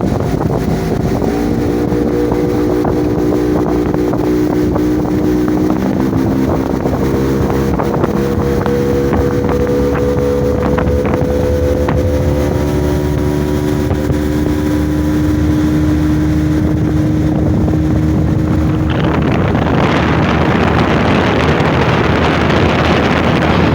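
Boat outboard motor running steadily at speed, its pitch stepping a little twice, with wind buffeting the microphone. Near the end a loud rushing noise of wind and water swells over the motor.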